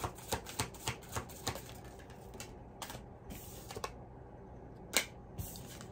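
A deck of oracle cards being shuffled by hand. There is a run of quick card clicks, about three a second, that slows to a few single snaps, the loudest about five seconds in.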